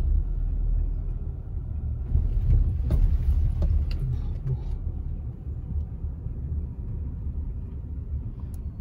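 Low, steady road and engine rumble of a Skoda Kodiaq heard from inside the cabin while it drives, with a few faint clicks a few seconds in.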